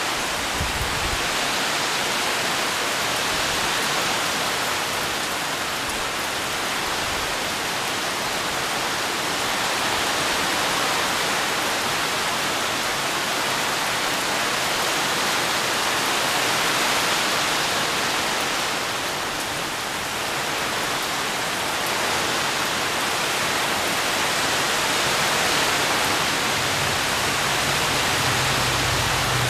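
Heavy rain pouring steadily onto palm fronds and garden foliage, an even, unbroken hiss. A low rumble joins near the end.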